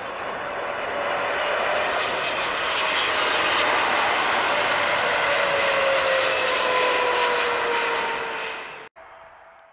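Jet airliner flying past, its engine noise steady with a whine that falls slowly in pitch as it goes by; the sound cuts off abruptly near the end.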